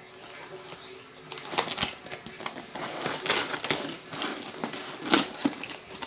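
A cardboard shipping box and its packaging being handled and opened by hand: irregular rustling, scraping and crinkling with sharp clicks, coming in several bursts.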